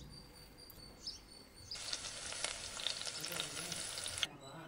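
A spring roll deep-frying in hot oil in a tiny kadai, sizzling with fine crackles. The sizzle starts a little under two seconds in and cuts off suddenly near the end.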